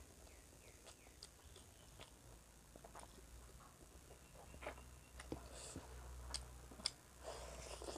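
Faint close-up eating sounds: chewing a mouthful of rice and curry, with scattered small mouth clicks and smacks.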